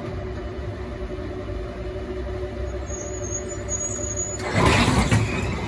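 An A2-class tram heard from its cab, with a steady low rumble and hum as it slows toward the buffer stop at the end of the line. A faint high squeal comes in about three seconds in, and a louder rush of noise follows about a second later as the tram comes to a stop.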